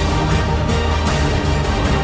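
Background soundtrack music, loud and steady with a heavy low end.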